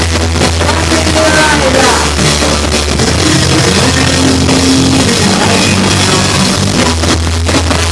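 Rock band playing loudly with drum kit, a heavy bass line and electric guitar, with a pitched line bending up and down about a second in.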